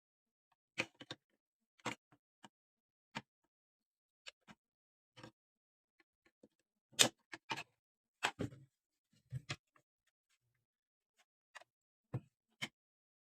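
Scattered sharp clicks and knocks at irregular intervals, with the loudest a little after seven seconds in and a cluster around eight to nine and a half seconds. These are the sounds of tools or small parts being handled.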